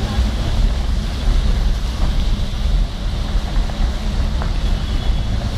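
A vehicle's engine running with a low, steady rumble in low gear as it wades through a flooded street, with water sloshing around the wheels.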